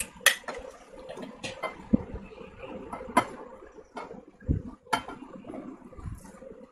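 Eating by hand close to the microphone: fingers mixing rice and curry on a plate and scraping a glass bowl, with a few sharp clicks of fingers on the dishes and low, dull mouth and handling sounds between them.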